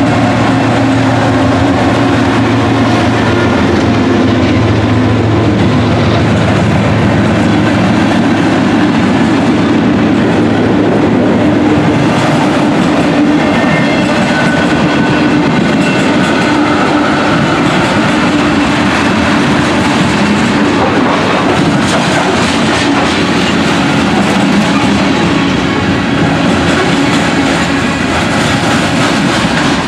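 Freight train passing: the engines of mid-train Norfolk Southern diesel locomotives give a steady low drone for about the first twelve seconds. Tank cars and covered hoppers then roll by with steady clickety-clack of wheels on rail joints.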